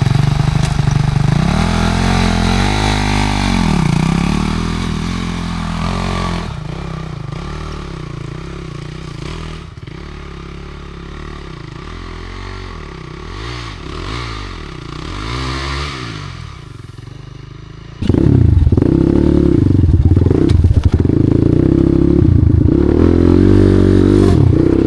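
Enduro dirt bike engine revving up and down again and again as it is ridden over rough ground. It is loud at first and fainter through the middle, then loud again with quick, repeated blips of the throttle from about 18 seconds in.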